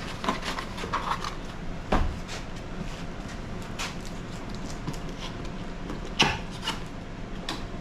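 A cardboard box being handled and opened: rubbing and scraping with scattered small clicks, and two sharper knocks about two and six seconds in.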